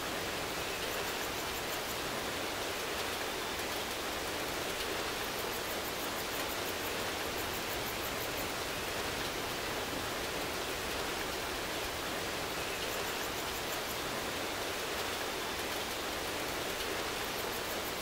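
Steady rain falling, an even hiss that holds the same level throughout.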